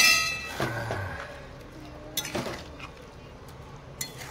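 Metal ladle striking and scraping an aluminium kadai while stirring chicken curry: a ringing clang at the start, then a couple of sharper knocks.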